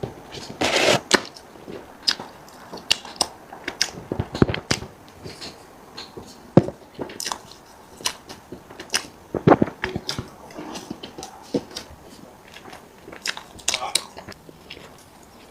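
A person eating close to the microphone: biting and chewing food, with irregular short clicks and mouth noises scattered throughout.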